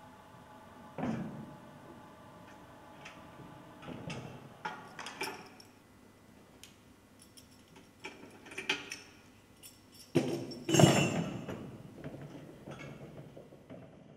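Steel rigging hardware being handled on a subwoofer's flying frame: shackles and pins clinking and knocking against metal, with scattered separate knocks and a louder, longer clatter near the end.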